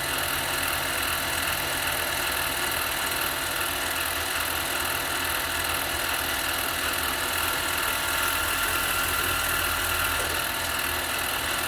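Harbor Freight mini lathe running at a steady speed: an even mechanical hum with several steady whining tones.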